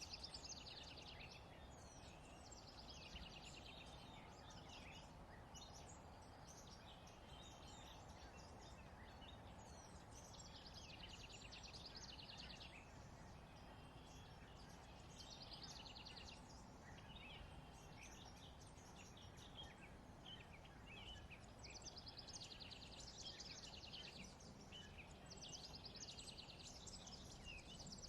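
Faint songbirds chirping and trilling in repeated short bursts, over a steady low background rumble.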